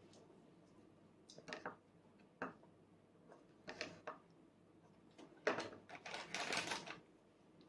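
Small clicks and taps of tableware being handled on a plastic high-chair tray, a few spaced-out knocks and then a longer rough clatter about two-thirds of the way through.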